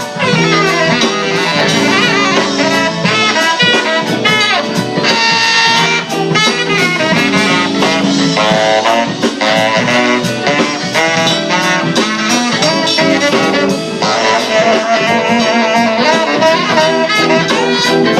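Live band playing an instrumental break: a saxophone solo over guitar and a steady drum beat, in a jazzy soul style.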